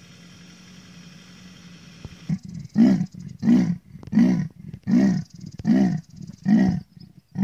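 Leopard giving its sawing call: a series of about seven deep, rasping grunts, one roughly every three-quarters of a second, starting a couple of seconds in.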